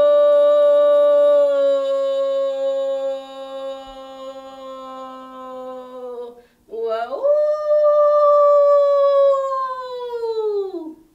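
A singer's unaccompanied voice holds one long note that sags slightly in pitch. About six and a half seconds in, it breaks off, swoops up into a second long note, and falls away in pitch at the end.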